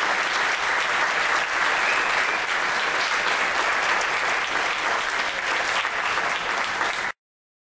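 Theatre audience applauding steadily; the applause cuts off suddenly near the end.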